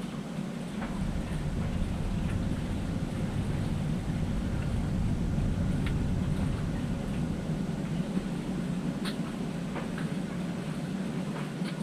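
Steady low rumble with a few light, sharp clicks and taps scattered through it, about five in all.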